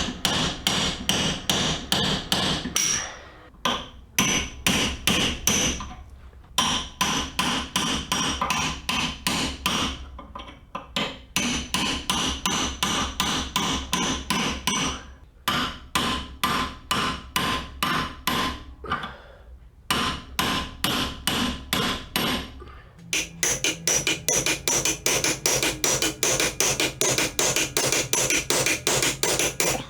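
Hammer blows on metal, about three to four a second, in runs broken by short pauses, driving at the old bushing sleeve of a Jeep Grand Cherokee engine mount. The sleeve is stubborn and not coming out easily.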